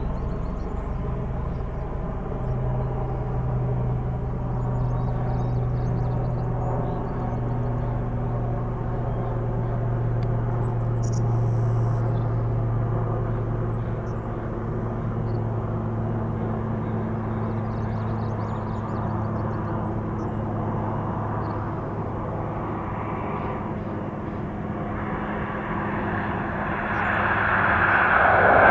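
Dash 8-400 turboprop arriving: a steady low propeller hum with its overtones over a broad engine noise, swelling sharply near the end as the aircraft comes close.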